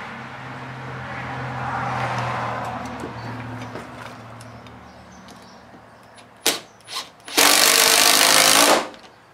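Bosch cordless drill driving a screw through a metal electrical box into a wooden post: two short blips of the trigger, then a steady run of about a second and a half. Before it, a steady low hum fades away over the first few seconds.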